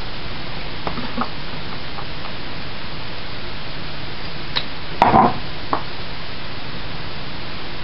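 Steady hiss with a few light clicks and knocks from kitchen utensils and small containers being handled. The loudest is a short clatter about five seconds in.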